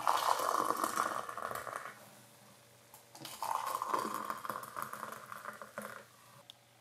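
Water poured from an electric kettle into two ceramic mugs, one after the other: a pour of about two seconds, a short pause, then a second pour from about three seconds in to about six.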